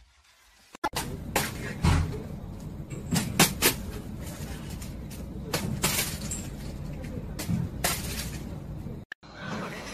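A steady low background noise with a dozen or so sharp knocks and clicks scattered through it. It starts abruptly just under a second in and stops just after nine seconds.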